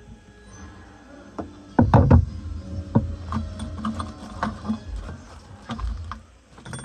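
Hand handling of tools and metal parts: irregular clicks, clinks and knocks, with a loud cluster of knocks about two seconds in.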